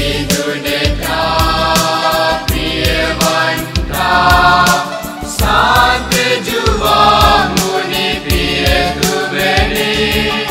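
A choir singing a Christian hymn with musical accompaniment and frequent sharp percussive strikes.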